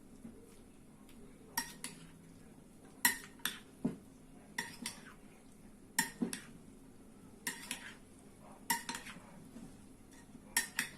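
Cutlery clinking against a plate as a salad is stirred: light clinks, mostly in pairs, about every second and a half.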